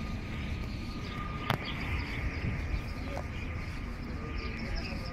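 Open-air ambience: a steady low rumble with faint bird chirps over it, and a single sharp click about a second and a half in.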